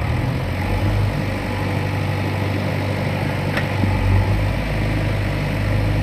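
JCB 3DX backhoe loader's four-cylinder diesel engine running steadily under hydraulic work, its note shifting in pitch just after the start and again about four seconds in. A faint short tick about halfway through.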